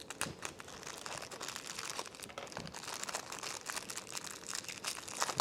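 Plastic packaging crinkling and rustling in a stream of small crackles as small accessories are unwrapped and handled.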